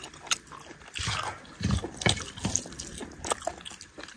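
Close-miked wet eating sounds of rice and chicken curry eaten by hand: a run of short sticky clicks and smacks, with fingers working the rice on a steel plate.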